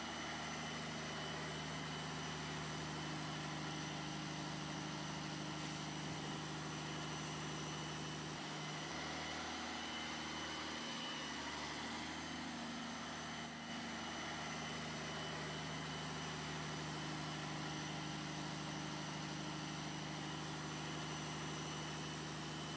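Small model boat's motor running steadily with an even, engine-like hum; its pitch wavers briefly about halfway through.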